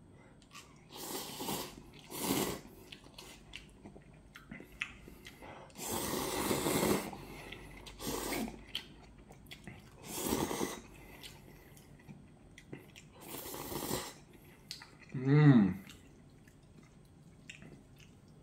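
Hot Shin Ramyun instant noodles slurped through the lips in about six separate long slurps, with soft chewing sounds between. A brief vocal sound comes near the end and is the loudest moment.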